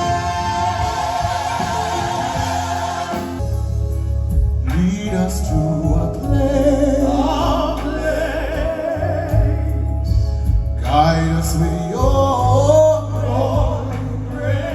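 Live classical-crossover vocal music: operatic-style voices holding long notes with vibrato over a band, with a heavy bass line coming in about three and a half seconds in.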